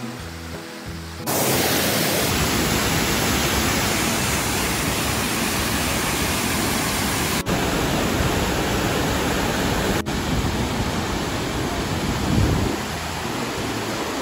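Waterfall: a loud, steady rush of falling water that comes in abruptly about a second in, with two brief dips where the shots change. Soft background music plays before it starts.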